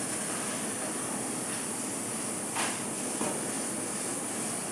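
2 kW CNC laser cutter cutting 3 mm mild steel sheet: a steady hiss from the cutting head and machine, with a brief louder burst about two and a half seconds in and a smaller one just after.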